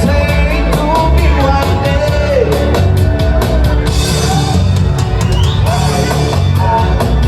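Live band playing a rock-style song: a singer's voice over drum kit and bass, with a steady beat.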